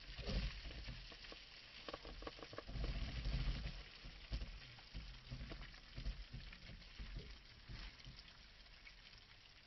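Small splashes and lapping water close beside a boat hull, heard as a crackly hiss with scattered clicks. Low rumbling swells come and go, the strongest about three seconds in.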